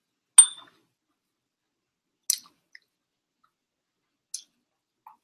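Chopsticks clicking against small serving dishes: three sharp clicks about two seconds apart, the first the loudest with a brief ring.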